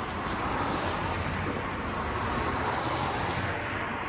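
Steady city road traffic: a low engine rumble under an even wash of street noise.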